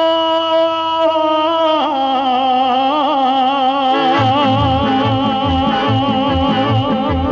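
A male voice holds one long, drawn-out sung note in a Balkan folk song, steady at first, then stepping down in pitch and wavering with vibrato, over an accordion band. About four seconds in, a pulsing bass rhythm enters under the held note.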